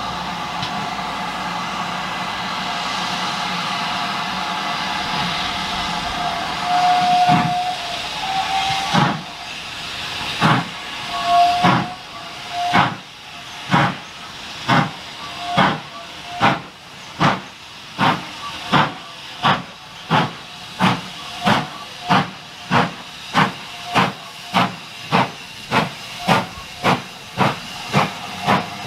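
Steam locomotive starting a train: a steady hiss of steam, short whistle toots about seven seconds in, then exhaust chuffs beginning about nine seconds in and quickening to about two a second as it gathers speed.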